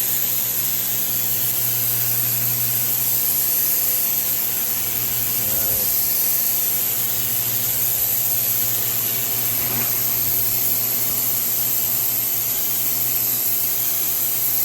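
Greenworks brushless electric pressure washer running steadily with a constant motor hum, its water jet spraying with a strong hiss.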